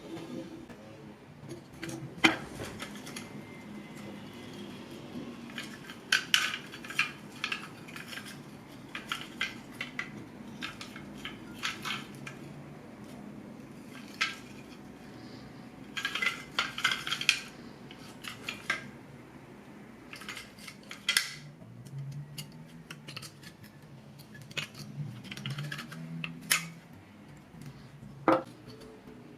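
Light metal clinks and clatter, irregular sharp clicks and short bursts of rattling, as small metal parts are handled. The loudest single clicks come about two seconds in and near the end.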